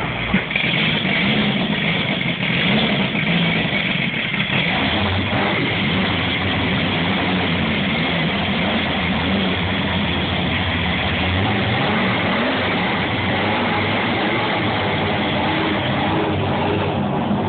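Car engines idling and revving at low speed as show cars pull out one after another. A steady low engine drone sets in about five seconds in.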